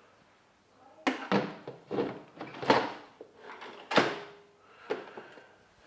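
Pressure lid of a Ninja Foodi Max multicooker being set onto the pot and turned closed: about half a dozen clunks and clicks of the lid against the cooker body, the loudest about four seconds in with a short ring.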